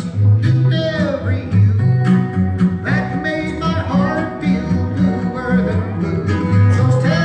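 Country-folk song played live on acoustic guitar, acoustic bass guitar and a slide guitar laid across the player's lap. Steady bass notes run underneath, and several notes glide up and down.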